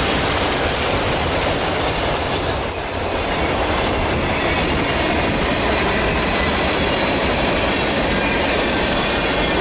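Freight cars of a mixed freight train rolling steadily past close by: continuous loud wheel-on-rail noise.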